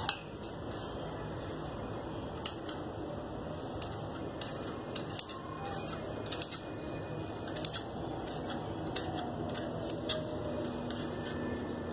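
Large steel dressmaker's shears cutting through cloth, the blades closing with sharp metallic clicks every second or two at an uneven pace.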